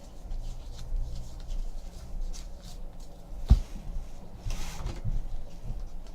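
Trading cards and foil packs being handled on a table: soft rustling and rubbing, with one sharp knock about three and a half seconds in and a short rustle a second later.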